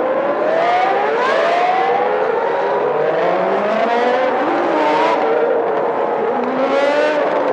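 Several 1991 Formula One racing engines running at high revs together, their pitches rising one after another and overlapping as the cars accelerate.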